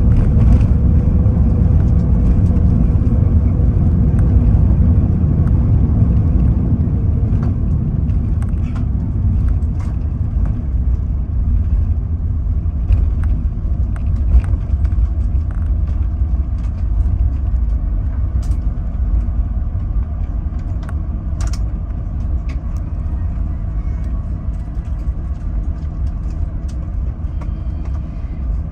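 Cabin noise in an Airbus A380-841 rolling out on the runway after touchdown: a deep, steady rumble that slowly dies away as the aircraft slows, with a few light clicks and rattles.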